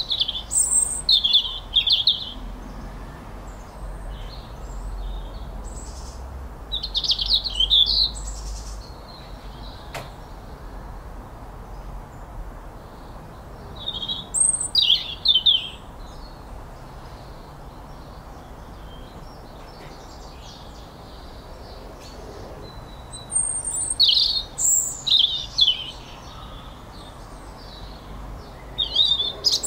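A songbird sings in short phrases of rapid high notes, one phrase every several seconds, over a steady low background hum.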